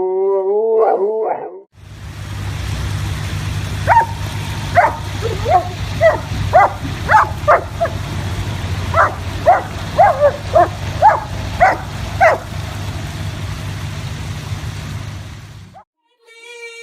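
A dog giving a rapid series of about fifteen short, sharp barks over a steady low rumble. A brief pitched, wavering sound comes just before the barking starts.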